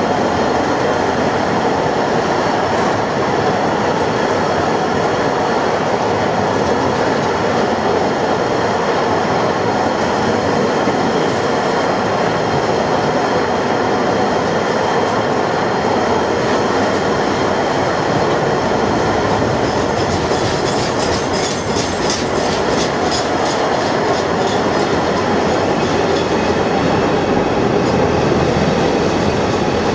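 Container wagons of a freight train rolling past close by: a steady rumble of wheels on rail with a faint high ringing of the wheels. About twenty seconds in comes a run of quick clicks as wheels cross the rail joints.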